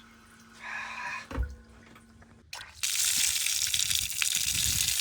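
A knock, then about three seconds in a caravan tap is turned on and runs with a strong, steady rush of water; the flow seems all right on this test.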